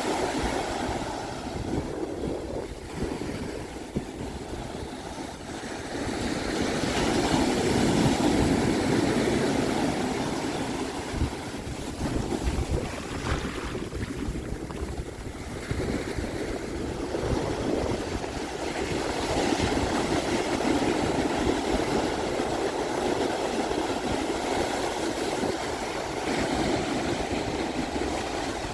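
Pacific Ocean surf breaking and washing up a sandy beach in slow swells. The loudest swells come about seven seconds in and again around twenty seconds. Wind rumbles on the microphone underneath.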